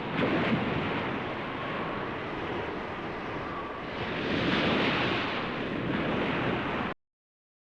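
Gusting wind: a full rushing noise that swells twice and eases between, then cuts off abruptly about seven seconds in.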